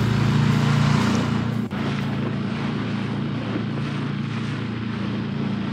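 Small outboard motor on an inflatable boat running steadily at trolling speed, with water rushing past the hull. About a second and a half in, the sound drops a little in level and carries on steadily.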